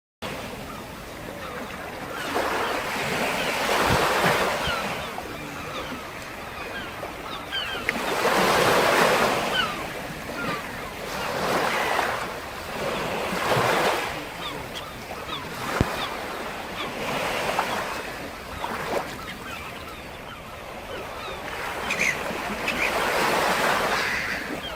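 Sea waves breaking and washing on the shore, the surf swelling and fading every few seconds.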